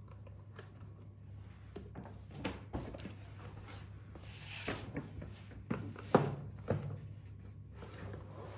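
Packaging being handled during an unboxing: a few light knocks and clicks, the loudest about six seconds in, and a brief rustle near the middle, over a steady low hum.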